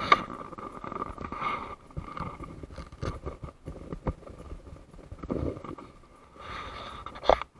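Irregular knocks, clicks and scraping close to the microphone, over a faint steady high tone.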